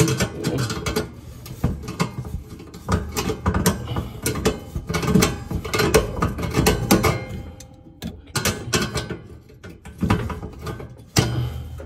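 Pliers clicking and scraping on a nut and the metal mounting bracket of a new oven igniter as it is tightened: a run of irregular metallic clicks and rattles.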